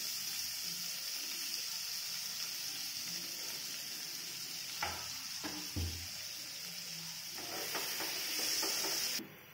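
Chopped onions sizzling in hot oil and butter in a nonstick frying pan, a steady hiss. A couple of knocks come about five seconds in, then a spatula stirs the onions near the end before the sizzle cuts off suddenly.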